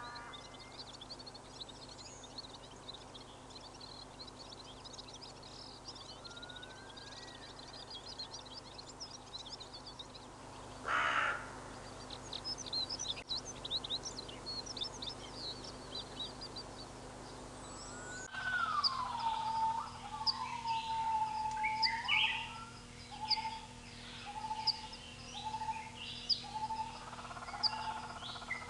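Many birds chirping and calling. About eleven seconds in there is a brief louder burst. About two-thirds of the way through the sound changes abruptly to a nearer bird giving a long falling call, then a series of short repeated notes over the continuing chirps.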